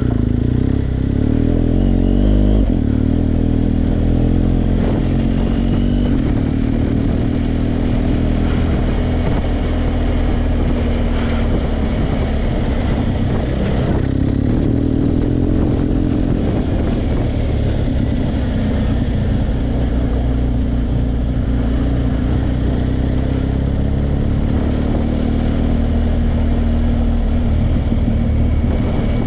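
BMW R1250GS Adventure's boxer-twin engine running under way on a dirt track, its pitch rising and falling several times with throttle and gear changes as the bike picks up speed. Loose stones clatter now and then beneath the engine noise.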